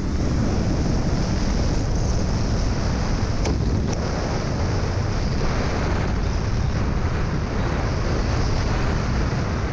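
Steady wind rush buffeting a helmet-mounted camera's microphone from the airflow of descending under a parachute canopy.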